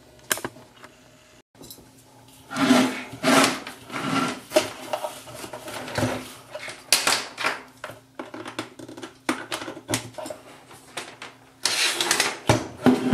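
Handling noise from a plastic disco-ball light being picked up and turned over: irregular clicks, knocks and rubbing of its hard plastic case, starting about two seconds in.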